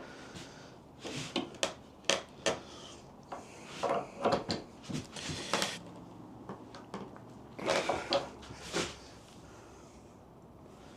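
Adjustable spanner knocking and scraping against the aluminium jaw of a Stanley 702 corner vise as the jaw is levered to bend it back into square. Irregular metal knocks and rubs that stop about nine seconds in.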